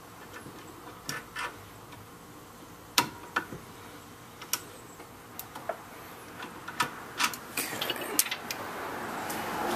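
Irregular sharp metal clicks and clinks of hand tools being handled and fitted during a brake job, a dozen or so, spaced unevenly and coming closer together after the middle, with a soft rising rustle near the end.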